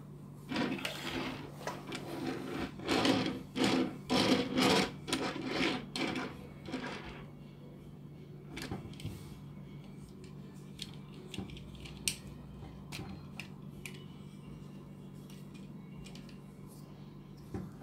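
Small plastic toy fire-engine figure handled on a wooden tabletop: a run of loud rubbing, scraping strokes for the first several seconds, then scattered small plastic clicks and snaps as its parts are moved during transformation.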